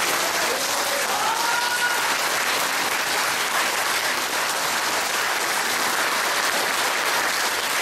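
Audience applauding steadily, the dense clapping of a crowd.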